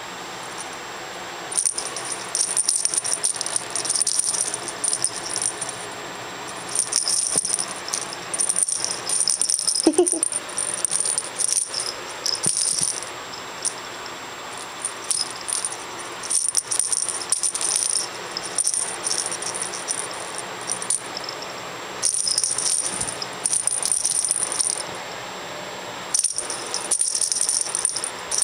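Dangly flamingo cat toy rattling in repeated short bouts as a cat bats and kicks it, with quieter pauses between bouts.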